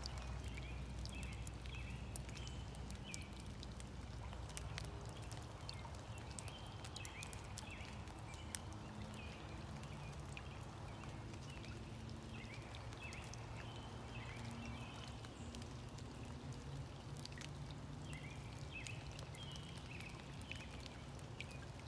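Quiet wet-woodland ambience: small birds chirping repeatedly at a distance, with scattered raindrops dripping and ticking, over a steady low hum.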